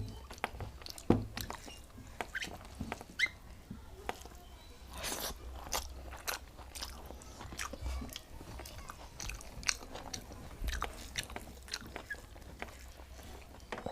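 A person eating rice and cauliflower curry close to the microphone: chewing, with irregular mouth clicks, smacks and soft crunches. The sharpest click comes about a second in.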